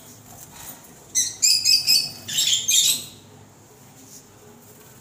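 Java sparrows calling from a small wire cage: a quick run of high chirps, starting about a second in and lasting about two seconds, in two groups.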